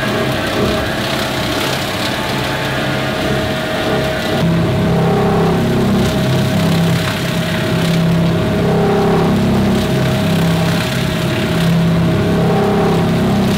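Rotary surface grinder running: a steady motor sound with a constant whine, as its grinding stones surface a mild-steel plate.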